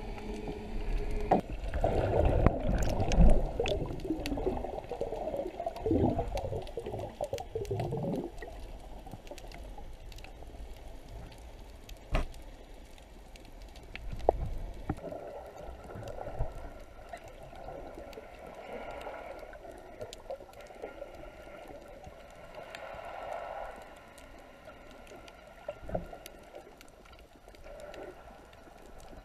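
Underwater sound picked up by a submerged camera: gurgling, bubbling water noise, loudest in the first eight seconds, with a few sharp clicks later on.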